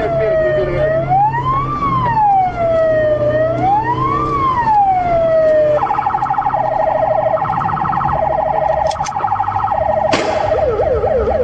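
Police car siren in a slow wail, rising and falling about every two and a half seconds. About six seconds in it switches to a fast warbling pattern, and near the end a short blast gives way to a rapid yelp, over a low engine drone.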